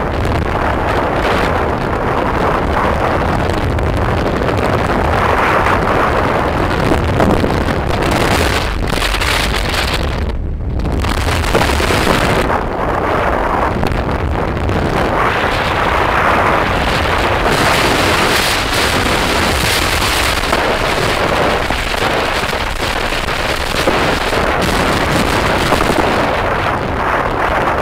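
Wind buffeting the microphone of a phone carried on a moving motorbike, a loud continuous rumble with the bike's engine and tyre noise beneath it. It goes briefly muffled about ten seconds in.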